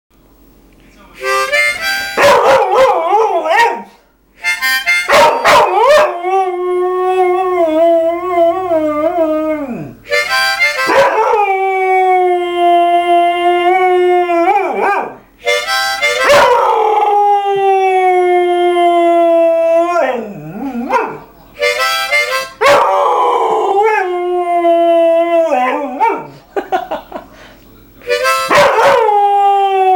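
A mixed-breed dog howling along to a harmonica: short harmonica phrases alternate with long drawn-out howls, about five in a row, each wavering and dropping in pitch at the end.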